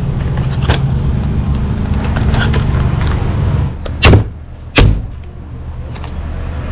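A large kitchen knife chopping down through a boiled mud crab's shell onto a wooden cutting board: two sharp thuds about two-thirds of a second apart, about four seconds in. Before them a steady low hum runs and fades out just ahead of the chops.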